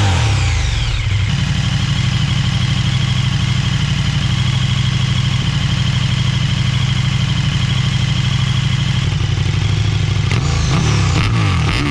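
KTM 1290 Super Duke R's V-twin running through a PipeWerx WERX-GP exhaust. A rev falls back to a steady idle within the first second, and the engine is revved again near the end.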